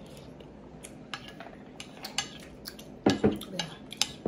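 Plastic forks tapping and scraping against plates while eating, in scattered short clicks, with a louder cluster about three seconds in.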